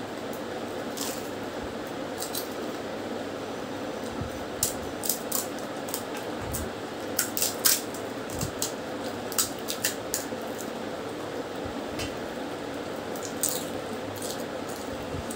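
Crisp fried fuchka (pani puri) shells cracking and crunching as they are broken open with the fingers: a scatter of short, sharp crackles, thickest through the middle, over a steady background hum.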